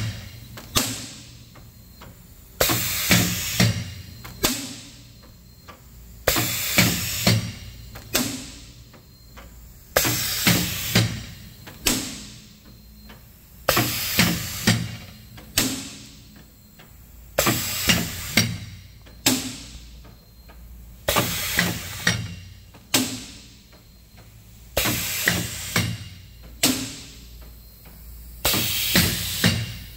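Pneumatic sheeting machine cycling: about every three to four seconds a burst of air hiss with a few sharp clacks and a knock, then a fade before the next stroke, repeating evenly about eight times.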